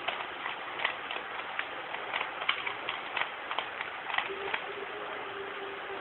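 3x3 Rubik's cube being turned quickly by hand: an irregular run of sharp clicks as its plastic layers snap round, stopping about four and a half seconds in, over a steady hiss.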